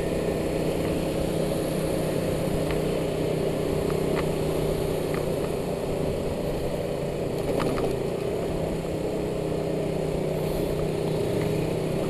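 KTM Duke single-cylinder motorcycle engine running steadily while riding at an even speed, heard from the rider's seat, with the engine note holding level throughout.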